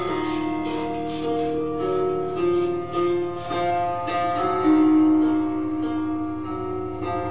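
Background instrumental music: a melody of held notes moving from one pitch to the next.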